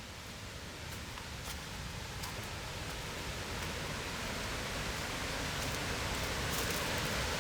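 Rushing creek water, a steady hiss that grows steadily louder.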